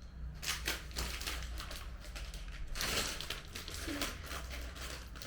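Plastic bags of building bricks crinkling and rattling in a series of irregular bursts as they are handled and shuffled into order.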